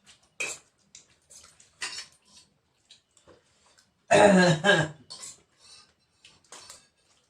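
Scattered light clinks and scrapes of dishes and utensils during a meal, with one louder, rougher burst lasting under a second about four seconds in.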